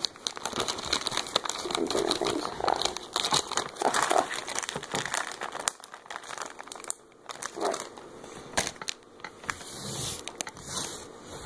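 Clear plastic packets of soft-plastic fishing lures crinkling and rustling as they are picked up and handled, in irregular crackly bursts.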